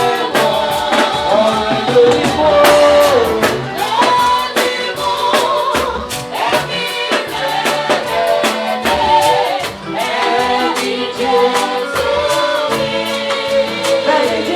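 Live gospel praise music: voices singing over a band with drums.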